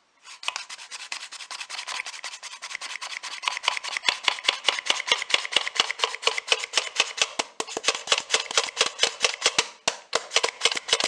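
Flour being sifted through a hand-held sieve, the sieve shaken in quick, even rubbing strokes, with a brief pause near the end.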